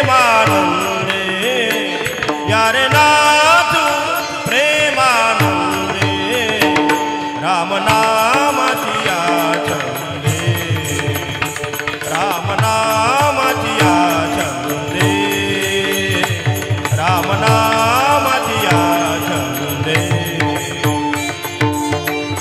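Marathi devotional kirtan music: a gliding melody over a steady held drone, with a regular hand-drum beat and small cymbal clicks keeping time.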